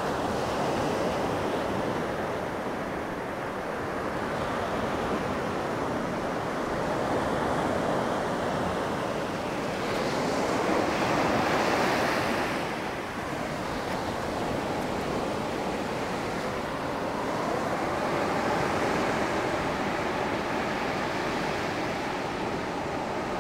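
Small Black Sea waves breaking and washing up over a sandy beach as a continuous wash of surf, swelling loudest about ten seconds in and then falling back.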